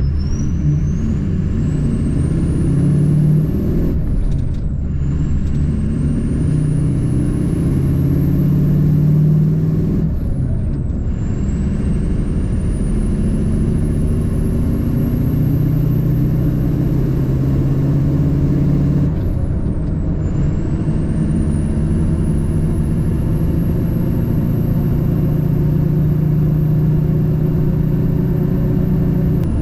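Diesel truck engine running steadily under way as it pulls up through the gears. A high whine climbs with engine speed and drops back sharply at each of three gear changes, about four, ten and nineteen seconds in.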